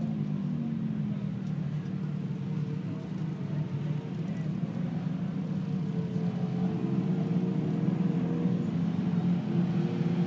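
Steady mechanical hum of engines or motors, several close pitches wavering slightly without any clear revving.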